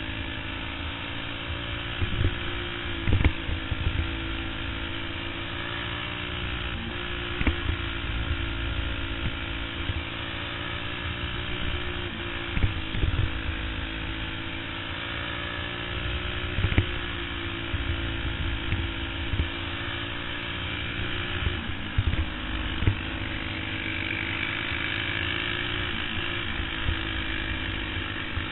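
Senior champ kart's engine running hard at a fairly steady pitch, heard up close from a camera on the kart's cage, with short sharp knocks every few seconds.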